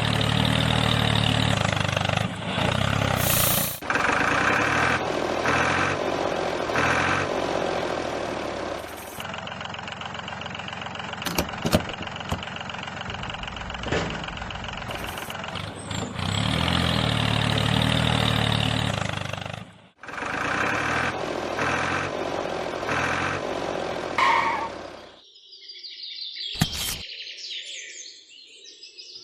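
A tractor engine running with a steady low chug, heard in several stretches joined by abrupt edits. Near the end it gives way to a quieter, higher sound with a few sharp clicks.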